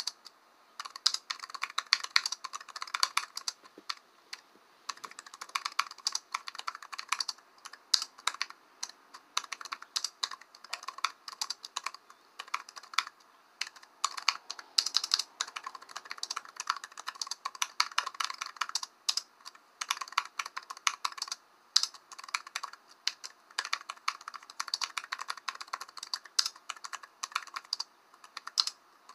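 Typing on a computer keyboard: fast, irregular key clicks in runs, with short pauses between them.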